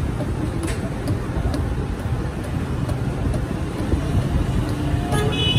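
Steady street-traffic rumble, with the swish and light knocks of a wooden churning stick spun by hand in a metal pot of lassi. A short high-pitched tone sounds near the end.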